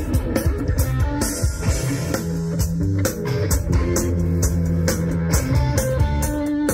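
Instrumental band music: an electric guitar melody over held bass notes and a steady drum-kit beat, played loud through a large outdoor stage PA.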